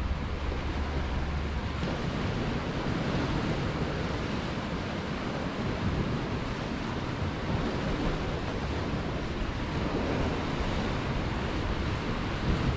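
Sea swell washing against shoreline rocks: a steady rushing surf noise, with some wind on the microphone.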